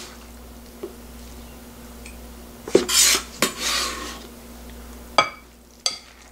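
Chef's knife blade scraping chopped kimchi across a cutting board into a glass bowl, with a run of rasping scrapes about three seconds in. Near the end, two sharp ringing clinks of a utensil striking the glass bowl.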